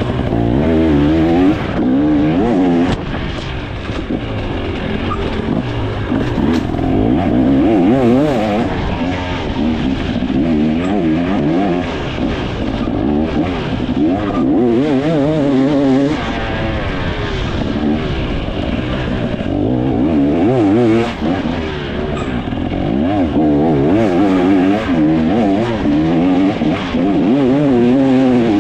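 2024 KTM 300 XC two-stroke dirt bike engine revving hard and constantly, its pitch climbing and dropping every second or two as the throttle is opened and shut on a tight trail, heard from the rider's helmet.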